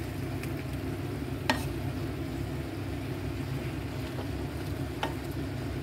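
Vegetables sizzling in a frying pan as they are stirred with a wooden spatula, with a sharp knock of the spatula against the pan about a second and a half in and a lighter one near the end, over a steady low hum.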